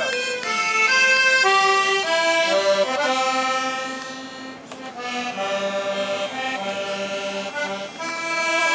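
Instrumental music: a slow melody of long held notes over sustained chords, easing off briefly near the middle before picking up again.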